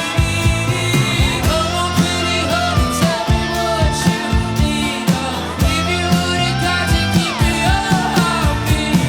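Live rock band playing: drums keep a steady beat under bass and a lead line that slides between held notes.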